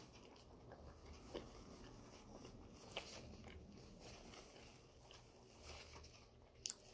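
Near silence with faint chewing, and a few soft clicks and rustles as a tissue wipes a pair of eyeglasses.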